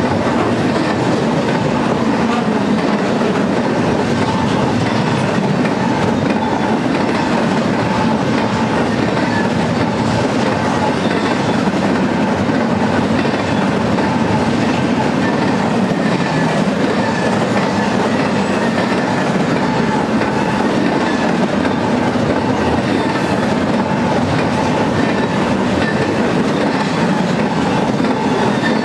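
Double-stack intermodal freight train of container-laden well cars rolling past at speed: a steady, unbroken rumble and clatter of steel wheels on the rails, with faint ringing tones over it.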